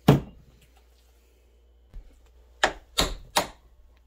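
A bench vise pressing a stuck bearing out of a snowmobile skid's idler wheel with a socket: one loud sharp crack just after the start, then three more sharp knocks close together near the end.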